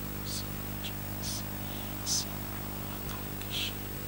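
Quiet whispered prayer into a handheld microphone: short, soft hissing 's' and 'sh' sounds about twice a second with no full voice, over a steady electrical hum from the sound system.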